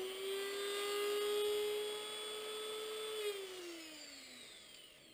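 Dremel rotary tool running free with a steady whine, its grinding bit lifted off the copper bushing, then winding down with a falling pitch from about three seconds in.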